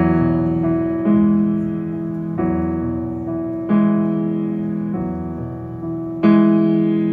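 Grand piano playing the slow opening chords of a song, one sustained chord struck about every second and a quarter, with a louder chord near the end.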